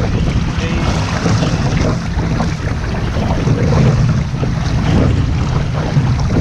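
Wind buffeting the microphone over water rushing and splashing along the hull of a one-person outrigger canoe being paddled fast through open-ocean chop, with irregular splashes from the paddle strokes and the bow.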